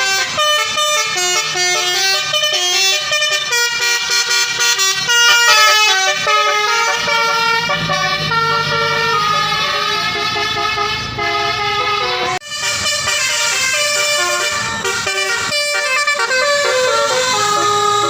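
Bus 'basuri' telolet horn playing a tune: loud multi-tone horn notes stepping quickly from pitch to pitch, breaking off briefly about twelve seconds in and then starting again.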